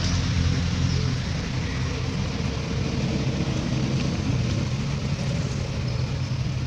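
A motor running steadily: a low, even drone with a hiss over it.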